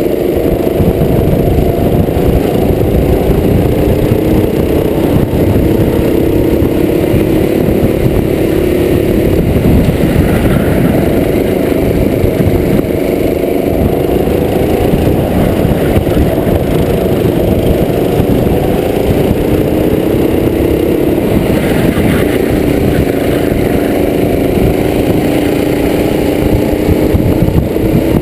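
Racing kart engine heard from on board the kart, running hard at race pace, its pitch repeatedly climbing and then dropping as the driver accelerates and lifts around the lap.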